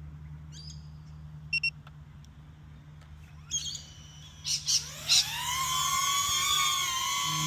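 Small quadcopter drone (DJI Neo): a few short electronic beeps, then about five seconds in its motors spin up. The whine rises in pitch and settles into a steady high hum.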